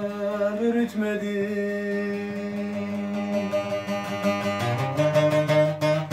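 Bağlama (long-necked saz) being strummed while a man holds a long, drawn-out sung note of a Turkish folk song; from about five seconds in the saz strumming becomes denser and more rhythmic.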